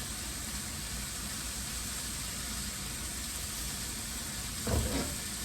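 Beef burger patties sizzling in a hot pan: a steady frying hiss, with one short, low knock near the end.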